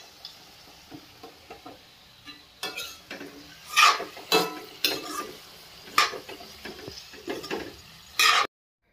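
Metal spatula scraping and stirring oily elephant apple pickle around a metal kadai, about nine separate strokes from about two and a half seconds in, over a faint sizzle from the pan just taken off the flame. The sound cuts off suddenly near the end.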